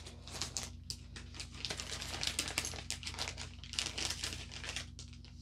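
Plastic packaging crinkling and crackling in the hands as a small clear plastic pouch is handled, in an irregular run of crackles that dies away near the end.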